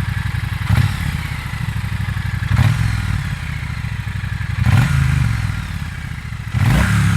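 Triumph Bonneville T100's 900 cc liquid-cooled parallel-twin engine with stock exhausts, idling in neutral and blipped four times, about every two seconds, each rev rising and falling back to idle. There is some popping from the exhaust as the throttle closes.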